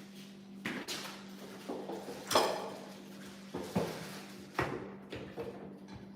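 Hard knocks and clatter of foosball table parts being handled and fitted during assembly: about five sharp knocks, the loudest about two seconds in, over a steady low hum.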